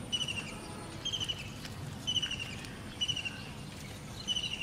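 A high chirping call repeats about once a second, each chirp a quick run of pulses, over a faint steady outdoor background.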